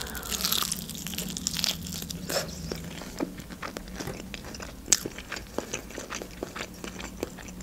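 Close-miked bite into a crispy breaded fried chicken wing, with a burst of crunching in the first second. Chewing follows, with many small crackles of the crust.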